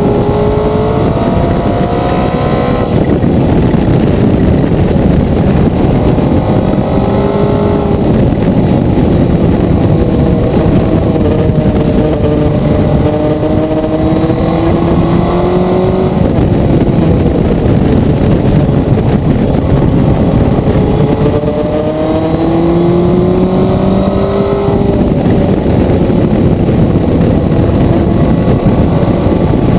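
Motorcycle engine under way, its note climbing and falling repeatedly and breaking off and picking up again several times, under loud rushing wind noise.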